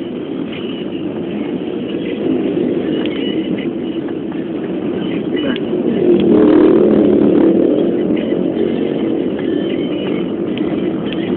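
Road traffic: vehicle engines running in a continuous rumble that grows louder for a couple of seconds around the middle.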